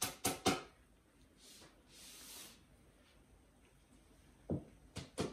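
Light clicks and knocks from flat-pack dresser parts being handled during assembly, with a short scraping rustle about two seconds in.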